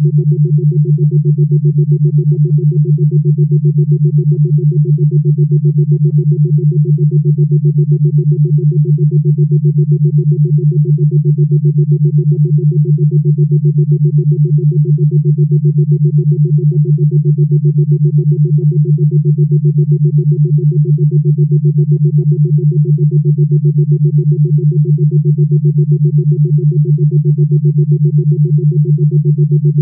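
Steady synthesized drone: a low tone with a fainter higher tone above it, pulsing fast and evenly without change.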